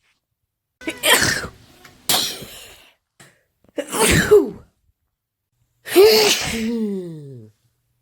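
A woman sneezing from hay fever: about four sneezes in quick succession, each cut off by a sudden silence. The last sneeze trails off in a falling voice.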